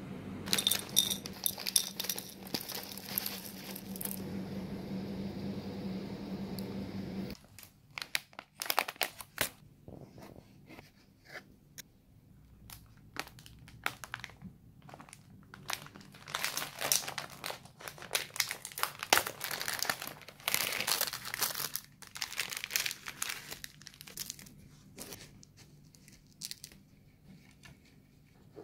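Thin plastic snack packets crinkling in irregular bursts as they are handled, busiest a little past the middle. A steady low hum sits under the first several seconds and cuts off suddenly.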